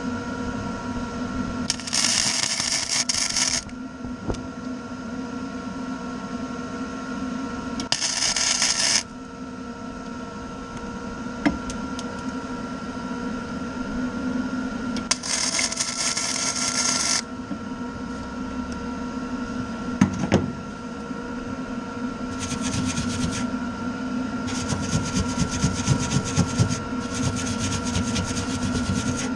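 Electric arc welder laying short tack welds: about six bursts of crackling arc, each one to two seconds long, with the later ones coming close together near the end, over a steady hum between them.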